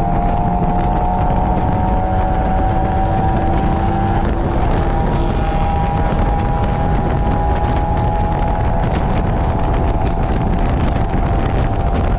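Mazda Roadster's 1.8-litre four-cylinder engine running hard on track, heard from inside the open cockpit with wind rushing over the microphone. The engine pitch climbs slowly, dips briefly about four seconds in, then holds high.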